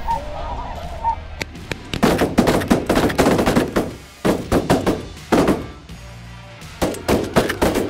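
A flock of snow geese calling loudly overhead, with a volley of shotgun blasts from several hunters starting about two seconds in and more shots near the end.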